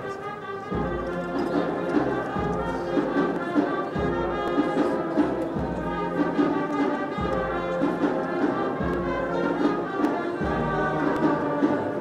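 Brass band playing a slow Holy Week processional march, with sustained brass chords changing every second or two over a steady beat.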